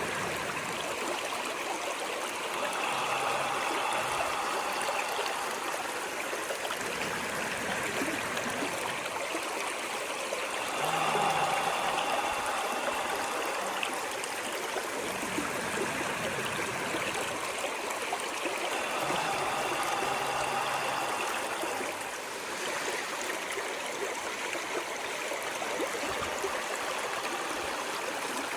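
Running water of a stream, a steady rushing and trickling. A soft, low pitched tone swells in and fades for a few seconds, three times at about eight-second intervals.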